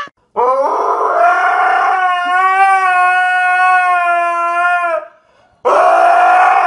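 A dog howling: one long howl held at a nearly steady pitch for over four seconds, then after a short pause a second howl that cuts off suddenly.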